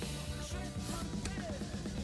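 Quiet background music with steady low notes.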